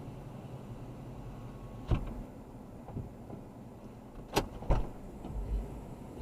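Car door latch clicks and a low thump as a passenger door is opened and shut, heard from inside the cabin over the steady hum of the idling car.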